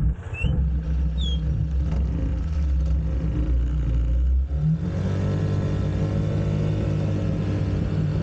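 Small motor scooter engine running under way with a low rumble. About halfway through, its note rises and turns clearer as the scooter accelerates.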